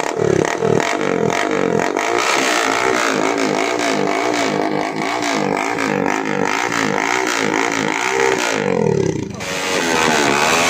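Motorcycle exhaust through a KAL-KAL aftermarket muffler, the engine revved with its pitch rising and falling over and over. It eases off briefly near the end, then picks up again.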